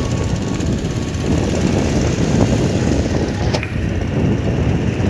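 Motorcycle riding along, its engine and wind noise blending into a steady low rumble. A brief sharp click about three and a half seconds in.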